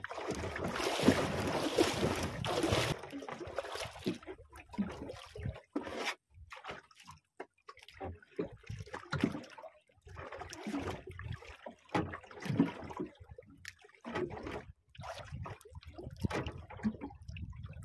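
Sea water lapping and splashing against the hull of a small boat in irregular bursts, after a steadier rush of water or wind in the first three seconds.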